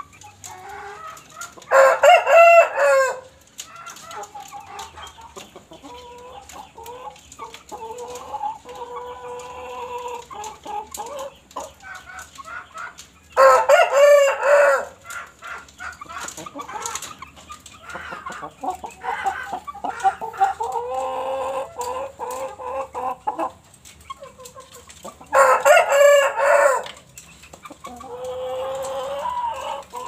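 Aseel rooster crowing three times, about twelve seconds apart, each crow short and loud, with quieter clucking in between.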